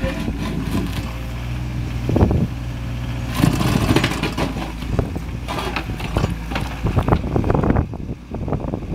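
Mini excavator engine running steadily while its steel 4-in-1 bucket is dragged through mud on concrete, with grating and scraping from about three seconds in. The scraping stops shortly before the end as the bucket is lifted clear.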